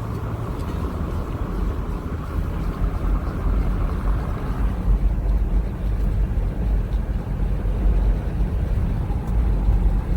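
Steady low rumble of a 2011 Toyota 4Runner being driven on a road test, engine and road noise together, growing slightly louder; a higher hiss fades out about halfway through.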